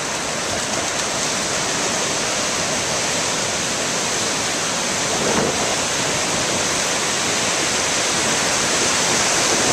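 Ocean surf breaking and washing up the beach: a steady, even rush of waves.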